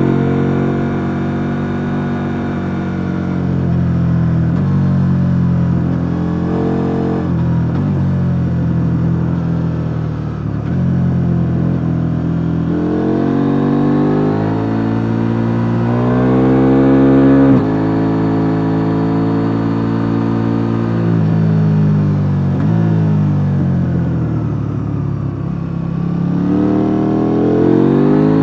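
KTM 890 Duke R's parallel-twin engine on its stock exhaust, ridden hard through a run of bends. The revs climb and fall again and again with throttle and gear changes. Near the middle, a long pull cuts off sharply, and another climb comes near the end.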